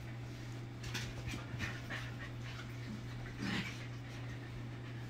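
Pembroke Welsh corgis panting, with a few short puppy noises, the loudest about three and a half seconds in, over a steady low hum.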